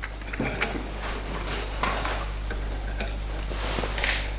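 Rifle cleaning rod pushing a patch on a brass jag through the barrel from chamber to muzzle: a few light clicks and knocks, then a scraping swish near the end as the jag comes out of the muzzle.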